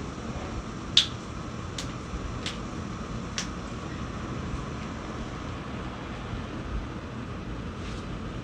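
Sharp cracks of joints popping during a chiropractic adjustment: one loud crack about a second in, then three fainter ones over the next two and a half seconds, over a steady low hum of room noise.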